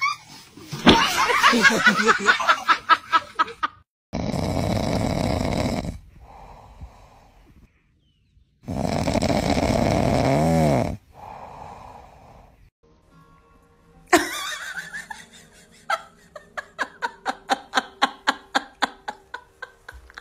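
A sleeping pig snoring: two long, loud snores about four and a half seconds apart, each followed by a quieter breath.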